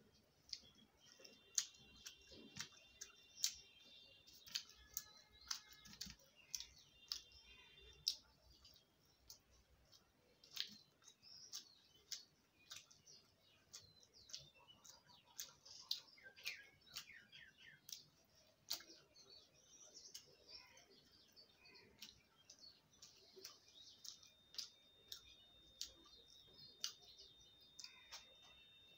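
Faint sounds of eating by hand from a metal plate: scattered sharp clicks and soft scrapes of fingers on the plate and of chewing. A few faint high, steady tones come and go, the longest near the end.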